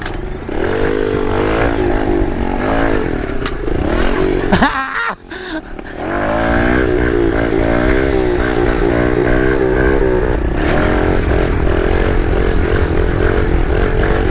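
Kawasaki KLX110 pit bike's small four-stroke single-cylinder engine running under throttle, its pitch rising and falling as the rider works it. About five seconds in it drops off briefly and glides back up, then holds a steadier note.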